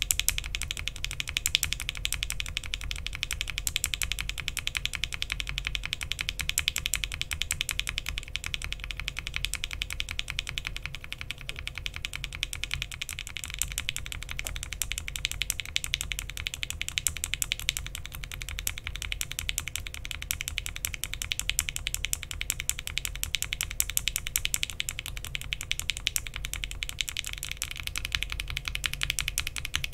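Fast continuous typing on a custom mechanical keyboard (Bakeneko60, FR4 plate, PBT keycaps) fitted with linear Frankenswitches: Alpaca bottom housings with UHMWPE stems and 67g TX long springs, first with Gateron Ink top housings, then about 13 seconds in with Gateron Milky Yellow tops, and Cherry MX tops near the end.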